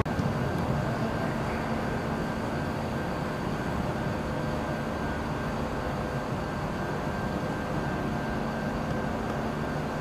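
Steady outdoor background noise: an even low rumble with a faint steady hum.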